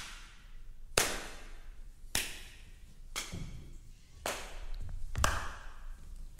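A slow, deliberate clap, one sharp hand clap about every second, echoing in a large room, with faint low thuds between some of the claps.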